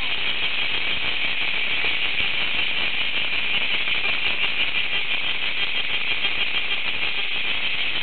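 A chorus of cicadas singing, a steady high buzzing drone with no break.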